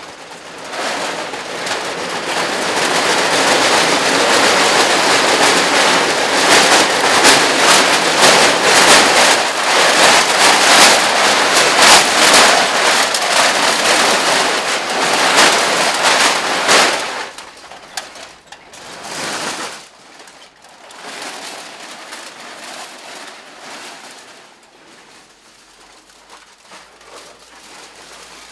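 Aluminium drink cans on a full-body can costume clattering and rattling together as the wearer moves, a dense crackle of many small metal knocks. It builds up about a second in and stays loud for around fifteen seconds, then drops to softer, patchy rattles.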